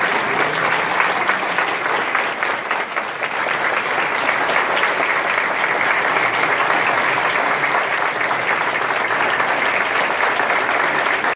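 Audience applause: many people clapping at once in a dense, steady patter.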